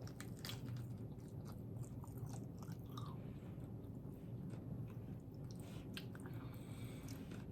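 A person chewing a crispy beef and chorizo tostada, with scattered small crunches and mouth clicks.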